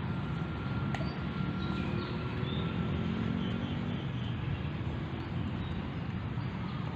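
Steady low outdoor rumble of distant traffic, with a sharp click about a second in and a few faint short high chirps.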